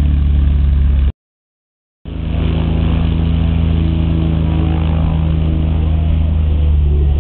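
Light aircraft's piston engine and propeller running at a steady low taxi speed as the high-wing plane rolls on grass. The sound cuts out completely for about a second near the start, then comes back at the same steady pitch.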